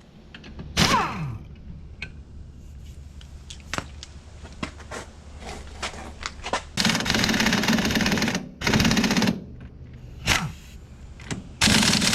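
Pneumatic impact wrench hammering on suspension bolts in several bursts. A short one comes about a second in, the longest comes after about seven seconds, and more follow near nine and ten seconds and at the end. Some bursts end in a falling whine as the tool spins down, and sharp tool clicks and clanks fall between them.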